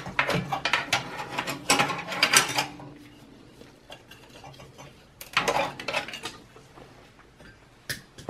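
Clinks and rattles of parts being handled inside a Dell Precision Tower 5810's sheet-metal case, in quick clusters over the first three seconds, again about five seconds in, with a single sharp click near the end.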